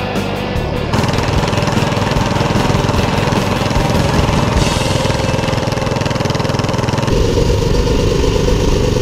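Small single-cylinder Predator engine running at a steady cruise, heard from on board while riding. The sound changes abruptly about a second in and again about seven seconds in.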